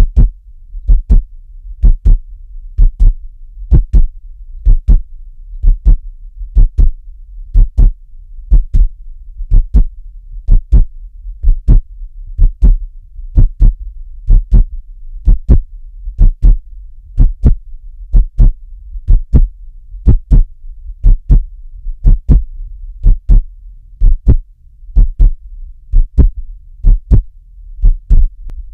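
Heartbeat: steady paired lub-dub thumps, about one beat a second.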